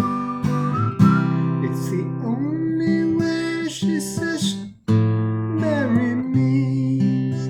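Acoustic guitar strummed in steady chords, with a voice holding long, sliding sung notes without clear words. The sound cuts out briefly about two-thirds of the way through.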